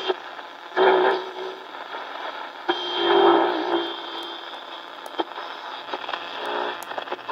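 Hitachi WH-888R portable radio on shortwave, its speaker giving static: steady hiss with scattered crackling clicks and a faint steady whistle. Muffled snatches of station audio swell up about one second and three seconds in as the fine-tuning slider is moved between stations.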